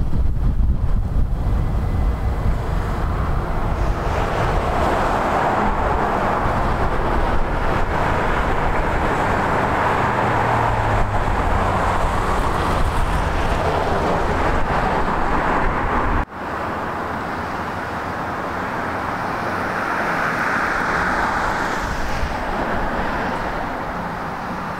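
Road traffic: cars passing on a wide road, their tyre and engine noise swelling and fading one after another, with wind rumbling on the microphone. About two-thirds of the way through the sound cuts abruptly to quieter traffic with less wind, and one more car passes near the end.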